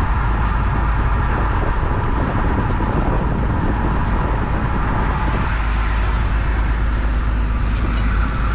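Combine harvester running steadily: engine rumble with the whir of its threshing machinery.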